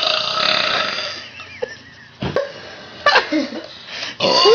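A girl belching: a long, drawn-out belch fades out about a second in. A couple of short noises follow, then another loud belch starts near the end.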